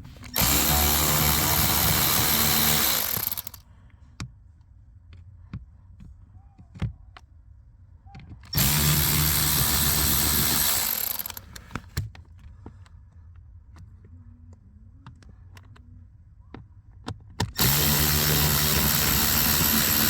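Cordless power driver with a T20 Torx bit running in three spells of about three seconds each, backing out the three Torx screws that hold the cabin filter cover, with small clicks of handling between the spells.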